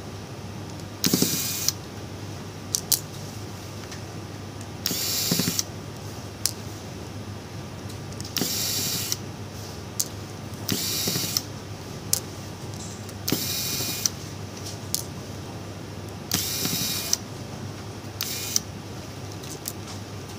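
Corded electric precision screwdriver spinning in about six short bursts, each under a second, as it works the small screws of a smartphone's frame, with light clicks between the bursts.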